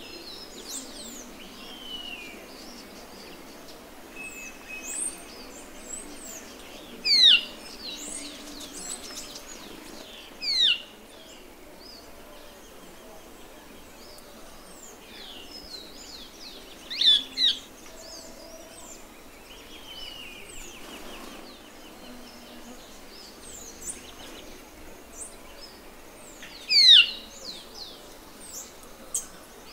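Band-tailed manakin giving loud, quick downslurred calls, five in all, two of them close together, over a steady background of fainter chirps and whistles from other forest birds.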